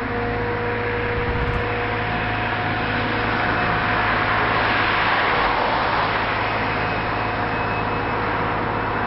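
A steady engine hum under a rush of vehicle noise that swells to a peak about halfway through and then eases off, like a vehicle passing by.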